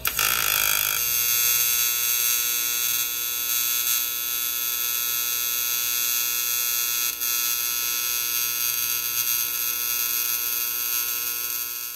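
AC TIG welding arc on aluminum exhaust tubing: a steady electric buzz that starts suddenly and stops about twelve seconds later.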